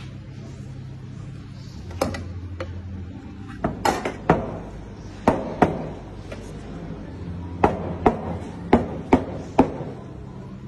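Barista's gear knocked against the counter: about a dozen sharp, ringing knocks, mostly in pairs and quick clusters, over a steady low hum.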